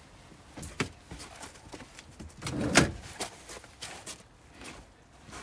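Knocks and clatter from handling a camper's folding bed platform, with a sliding scrape that builds to one loud knock about two and a half seconds in.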